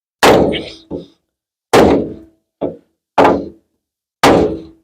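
Six hard blows struck against the dented sheet steel of a 1950 Ford F1's blowout-damaged front end, knocking a pinch out from below; each hit is a sharp metallic bang with a brief ring, the louder and softer strikes coming at an uneven pace.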